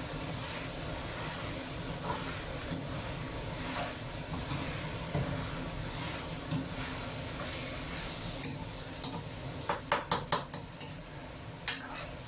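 Cubes of sweet potato jelly and scallions sizzling in oil in a wok while a spatula stirs and scrapes them. About ten seconds in, the spatula knocks against the wok in a quick run of sharp clicks, and once more near the end.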